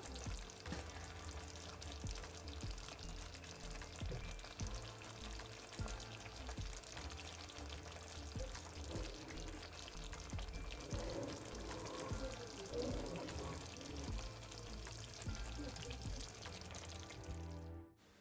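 Sweet and sour sauce simmering in an uncovered pan, bubbles popping with a faint sizzle, over soft background music. The sound cuts off near the end.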